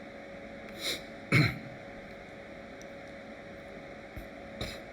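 A man's breath in, then a short, loud throat clearing with a falling pitch about a second and a half in; another breath near the end.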